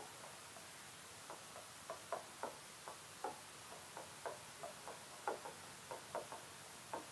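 Faint, unevenly spaced light taps and clicks, about three a second, of a pen striking an interactive whiteboard screen while a line of handwriting is written.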